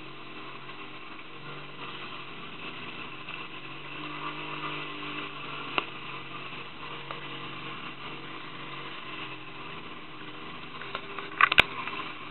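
A small boat's motor running steadily, with water rushing past the hull, its hum rising slightly in the middle. A few sharp knocks sound near the end.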